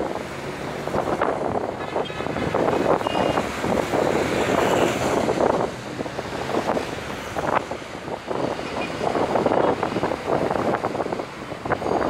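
Storm waves breaking on rocks and concrete breakwater blocks in swelling surges of surf, with gusting wind on the microphone.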